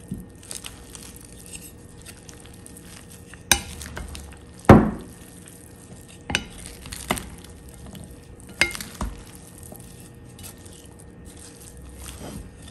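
Wooden spatulas tossing and mixing a shredded cabbage, carrot, onion and meat salad in a bowl: soft stirring sounds broken by several sharp knocks of wood against the bowl, the loudest a little under five seconds in.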